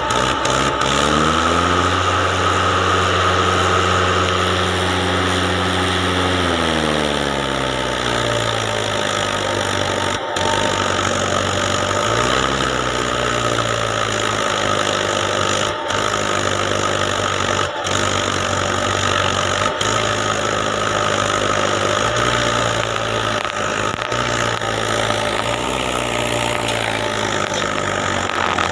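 Mahindra tractor's diesel engine revving. It climbs about a second in, holds high for several seconds, drops back around seven seconds in, then rises and falls again a few more times.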